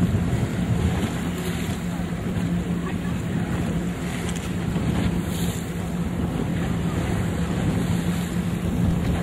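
A boat's engine running at a steady drone, with wind buffeting the microphone and choppy sea water washing around the hull.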